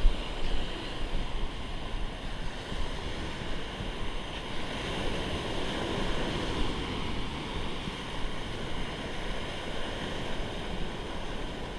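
Sea surf breaking and washing up a sandy shore in a steady rush, with a low wind rumble on the microphone.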